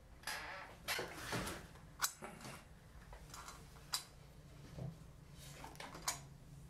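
Handling noise of hands working plasticine clay onto a wire horse armature on a wooden base: rustling scrapes in the first second and a half, then a few sharp taps about two, four and six seconds in.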